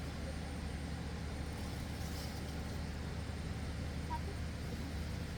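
Steady low background rumble with no distinct events, and a few faint short chirps over it.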